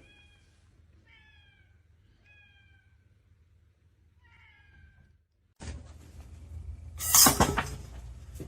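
A cat meowing, about four short, high-pitched meows that fall slightly in pitch. About seven seconds in, after a short silence, comes a loud, noisy crash.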